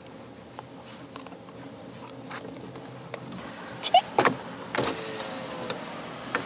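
Low steady hum inside a car cabin, with a few small clicks and a short laugh about four seconds in.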